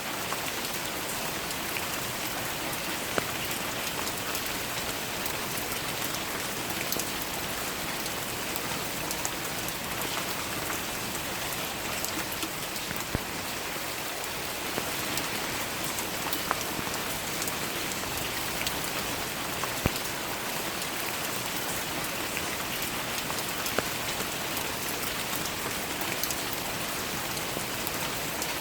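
Steady rain falling: an even hiss of rain on surfaces, dotted with scattered drop ticks and a handful of louder single drops landing close by.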